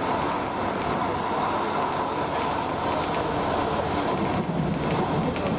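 Interior running noise of a Roslagsbanan X10p electric multiple unit under way: a steady rumble and hum of wheels on rail, with a deeper rumble swelling about four and a half seconds in.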